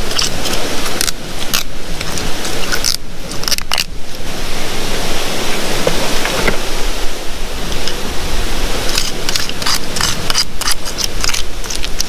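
Steady loud rush of a waterfall, with a thin metal crevicing tool scraping and clicking against bedrock and loose gravel in spells: near the start, around three to four seconds in, and again between about nine and eleven seconds.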